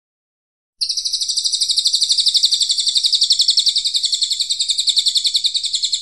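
Cililin coklat songbird giving one long, rapid, harsh trill of evenly repeated notes, about ten a second, starting abruptly about a second in and running on without a break until it stops at the very end: the long rough "tembakan" phrase used as masteran to tutor competition birds.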